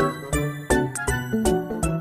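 Upbeat, playful background music with a steady beat and bright tinkling notes.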